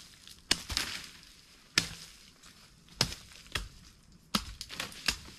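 Machete chopping harvested cassava roots and stems: a series of sharp, irregularly spaced chops, coming closer together near the end.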